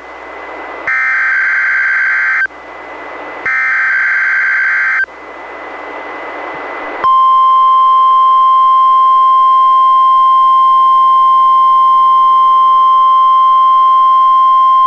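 NOAA Weather Radio monthly test received on a Reecom R-1630 weather radio: two bursts of SAME digital header data, each a harsh screech about one and a half seconds long with radio hiss between them. About seven seconds in, the steady 1050 Hz weather radio warning alarm tone starts and holds.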